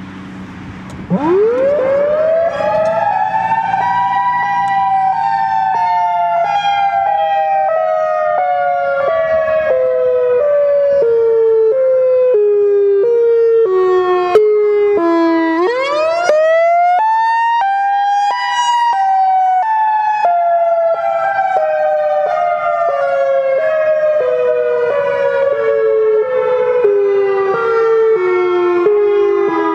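Warning siren sounding an emergency alert: a loud wail that climbs quickly about a second in, then falls slowly in small steps for over ten seconds, climbs again about halfway through and falls again, starting to climb once more at the very end.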